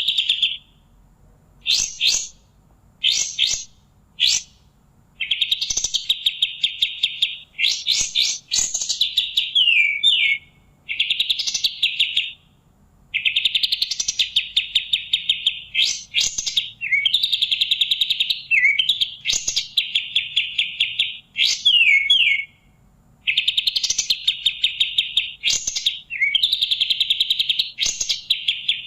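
A kapas tembak songbird singing in bursts of rapid, chattering trills, each a second or a few seconds long with short pauses between, mixed with a few quick downward-sliding notes.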